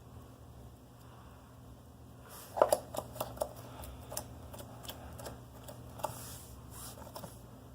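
Slime being kneaded and squeezed by hand, giving off an irregular run of sharp clicks and pops as air pockets in it burst. The clicking starts about two seconds in and is loudest just after it starts.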